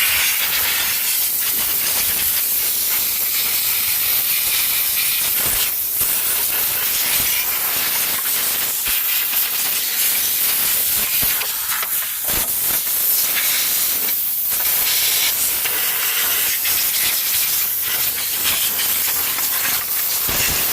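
Compressed air blasting in a long steady hiss with a few brief breaks, blowing dust and grime off a dirty steering column during cleaning.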